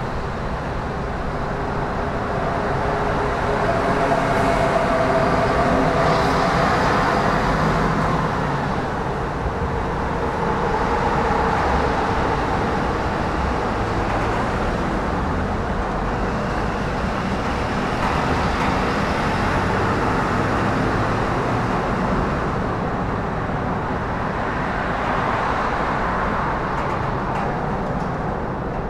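Road traffic noise: a steady rumble and hiss that swells and fades every several seconds as vehicles pass.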